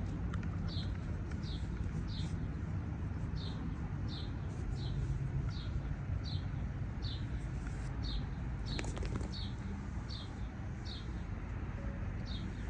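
A bird calling over and over, a short high chirp repeated every half second or so, over a steady low rumble, with a brief clicking about nine seconds in.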